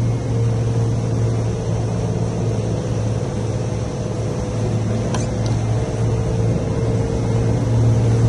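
A boat's outboard motor running steadily under way, with a low, even drone and a fainter steady tone above it, over the rush of water and wind. There is one faint click about five seconds in.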